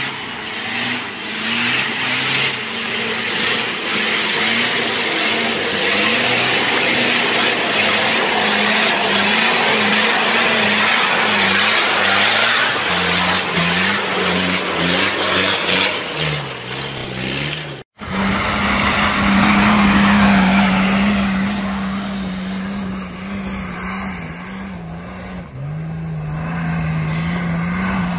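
Off-road 4x4 engines labouring and revving on a steep loose-rock climb, a short-wheelbase Toyota Land Cruiser first, with a dense gritty noise of tyres working over loose stones. The sound cuts abruptly about 18 seconds in to another 4x4 climbing, its engine note shifting up and down.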